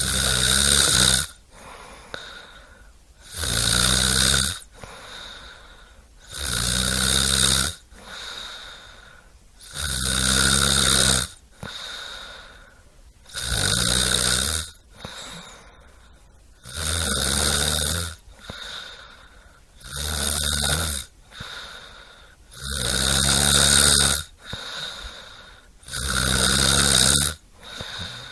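A person snoring: a loud snore about every three seconds, each lasting about a second, with quieter breathing in between.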